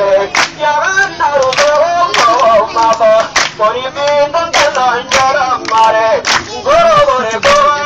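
A man singing through a megaphone, his voice rising and falling in long phrases, over sharp percussive beats roughly once a second.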